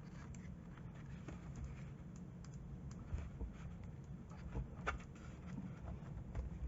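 Light, irregular clicks and taps of plastic parts being handled as a body support is squeezed and pressed into an RC truck's plastic body mount, over a low steady hum.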